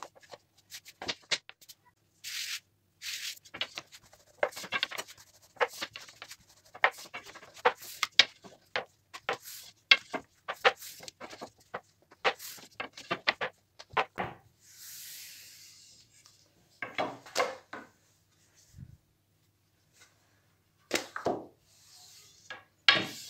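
Long thin wooden rolling pin rolling and rubbing a thin sheet of dough over a floured granite countertop. The sound is a string of irregular short rubs, taps and knocks as the dough is wrapped around the pin and unrolled.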